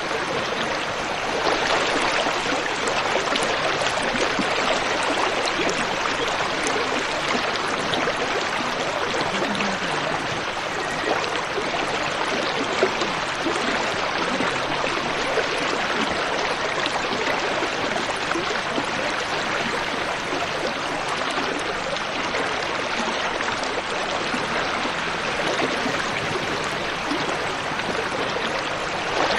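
Steady rush of water from a shallow, rocky river as a car drives slowly through it.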